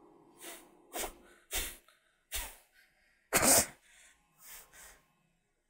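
A man's stifled laughter: about seven short breathy puffs through the nose and mouth, the loudest a little past the middle.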